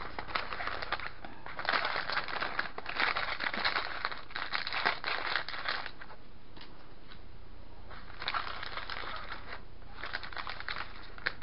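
Plastic candy-kit packet crinkling and rustling as it is handled and cut open with scissors. The rustling comes in dense irregular bursts for about the first six seconds, then thins to a few softer rustles near the end.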